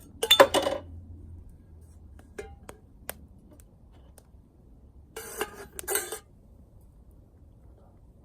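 Metal pieces clattering and clinking together in two short bursts, one near the start and one between about five and six seconds, with a few single clicks between.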